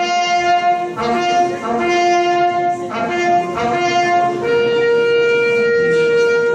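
Brass music: a phrase of held chords changing about once a second, then one long held note from about four and a half seconds in that stops near the end.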